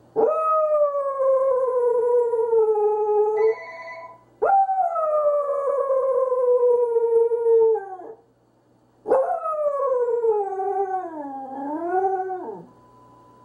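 Pembroke Welsh corgi howling: three long howls, each sliding slowly down in pitch, the last one wavering up and down before it breaks off.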